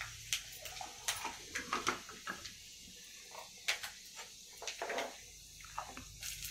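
Fenugreek seeds frying in hot oil in a kadai: a steady high sizzle with frequent sharp crackles and pops through it.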